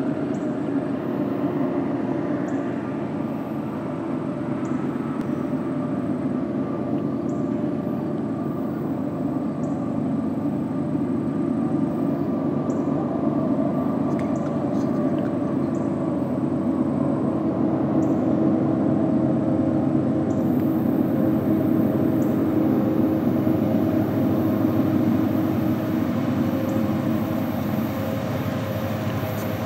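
Diesel locomotives of an approaching Union Pacific freight train, their engines giving a steady, droning hum that grows slightly louder as the train nears.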